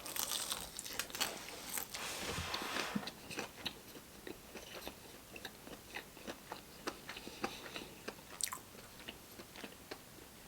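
A person chewing crunchy fried food close to the microphone: dense crunching for the first few seconds, then slower chewing with scattered small clicks.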